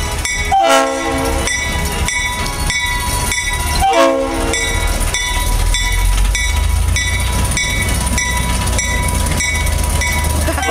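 Small diesel switcher locomotive running as it passes, sounding two short horn blasts, the first about half a second in and the second at about four seconds, over its steady engine rumble and a regular clicking of wheels on the rails.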